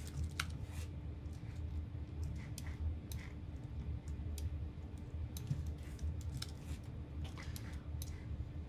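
Irregular clicks of a computer mouse and keyboard as selections are made in an image editor, over a low steady hum.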